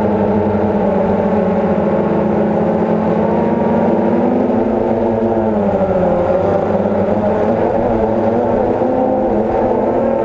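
DJI Phantom quadcopter's electric motors and propellers buzzing steadily close to the camera, the pitch wavering as the drone manoeuvres: sagging a couple of seconds in, then rising and falling again around the middle.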